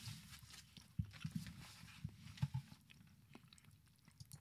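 A person chewing close to the microphone: faint, irregular clicking and crunching mouth sounds, busiest from about one to two and a half seconds in.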